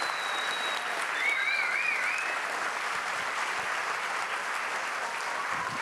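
Audience applauding steadily, with a high, wavering whistle over it about a second in.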